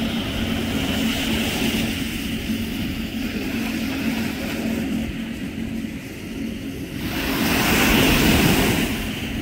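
Motorboat engine running steadily with wind and water rushing past, swelling louder for about two seconds near the end.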